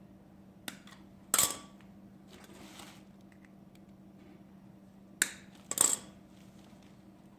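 Shop handling noises: a few sharp clicks and clatters, the loudest about a second and a half in and again around six seconds, over a faint steady hum.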